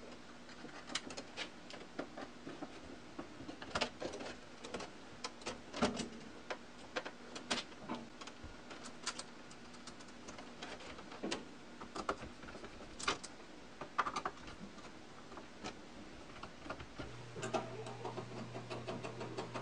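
Scattered light clicks and taps of copper wires and a screwdriver being worked at the terminals of a breaker panel. A low steady hum comes in near the end.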